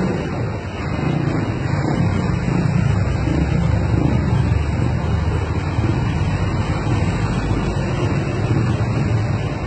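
Steady street traffic: car and motorcycle engines running close by, a low rumble that fills in about a second in.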